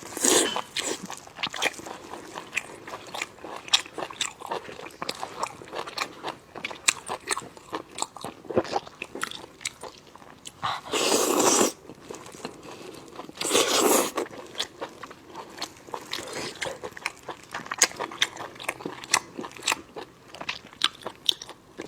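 Close-miked mouth sounds of a person biting and chewing cooked sheep intestines: a dense run of wet clicks and crackles, which the title says squeak when bitten. Two longer, louder noisy sounds come about halfway through.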